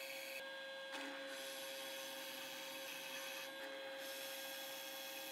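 Drill press running with a faint, steady hum while a 7/8-inch Forstner bit bores through a hard maple and purpleheart block, the cutting heard as a steady scraping hiss.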